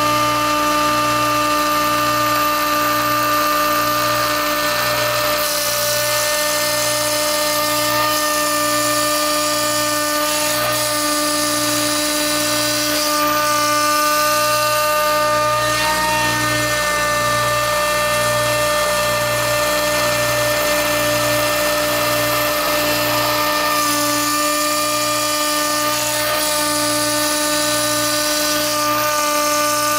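STEPCRAFT HF500 CNC spindle running at about 18,000 rpm, driving a 1/8-inch O-flute end mill through cast acrylic: a steady high whine with a hiss of cutting underneath. The cutting noise shifts a few times as the bit changes direction, and a low regular pulsing runs beneath it.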